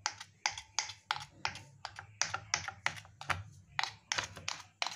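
Metal fork pricking pizza dough in a dosa griddle, docking the base: its tines click sharply on the pan about three times a second.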